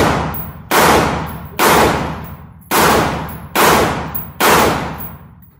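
A gun fired six times at a steady pace of about one shot a second. Each loud shot rings out in the echo of an indoor range.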